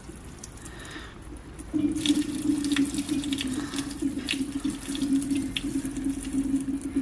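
Old red coolant running out of an opened radiator drain plug in a thin stream and splattering below, with scattered drip ticks. About two seconds in it gets louder and a steady low hum joins the splashing.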